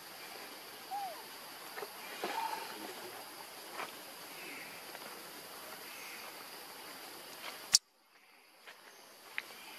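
Outdoor ambience with a steady high insect hum, two faint short squeaks about one and two seconds in, and a few light clicks. Near the end a sharp click, after which the sound drops out suddenly and fades back in.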